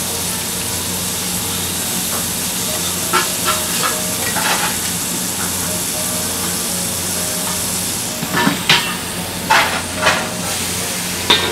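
Kobe beef steak sizzling in its fat on a hot teppanyaki griddle, a steady hiss over a low hum, with a few sharp clicks about three seconds in and again near the end.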